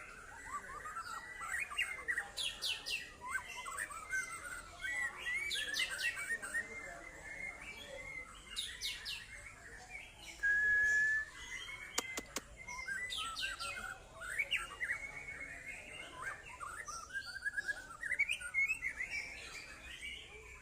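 White-rumped shama (murai batu) singing a varied song of whistles, slurred notes and rapid trills. About ten seconds in it holds one long steady whistle, the loudest note, and a few sharp clicks follow just after.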